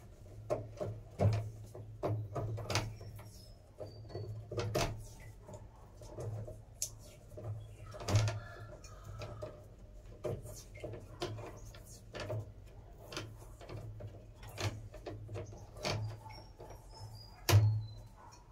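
Irregular clicks, taps and rattles of hands handling and joining electrical wires, over a steady low hum.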